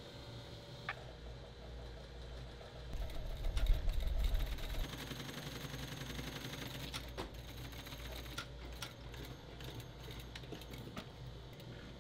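Industrial sewing machine stitching canvas at a fast, even pace. It is loudest for about two seconds around three seconds in, then runs on more quietly, with a few sharp clicks.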